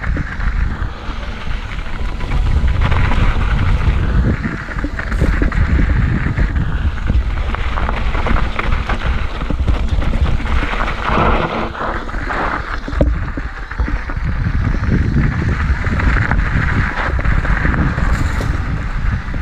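Wind buffeting the microphone over the rolling crunch and small knocks of an Ibis Mojo HD4 mountain bike riding a sandy, rocky trail.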